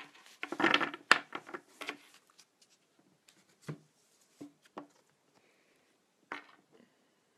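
Handling noise of stiff cards being sorted and picked up: a burst of rustling and scraping about a second in, then a few light knocks and clicks.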